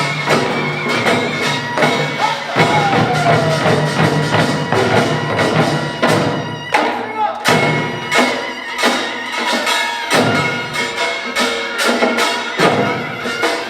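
Korean pungmul folk percussion ensemble playing a fast, driving rhythm: dense metallic gong strokes over drums, several hits a second.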